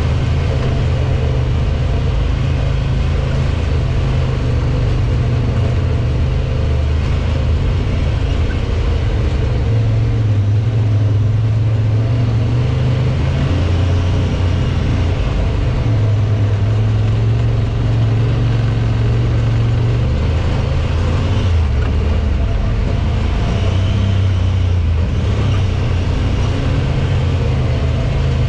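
Side-by-side UTV engine running at low speed, a steady low drone that rises and falls slightly in pitch as the throttle changes.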